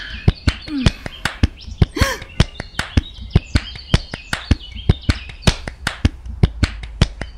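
A steady rhythmic beat of sharp snap-like clicks, about four a second, over a low steady bass, with bird chirps in the background.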